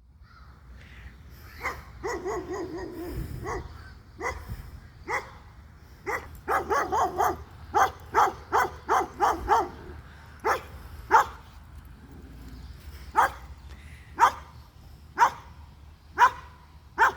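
Dog barking repeatedly: a quick run of barks, then single barks about a second apart.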